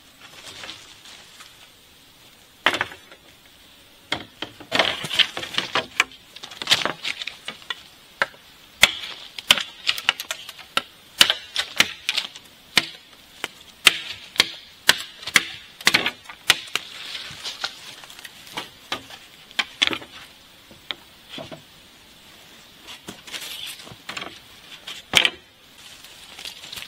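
Bamboo poles and split bamboo slats knocking and clattering against each other and the bamboo frame as they are handled and set in place: many sharp, irregular knocks, quieter for the first couple of seconds and again near the end.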